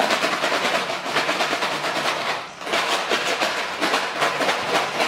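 Numbered draw lots rattling inside a hollow orange plastic ball as a child shakes it hard: a fast run of sharp clicks that pauses briefly about halfway through and then starts again, mixing the numbers for the draw.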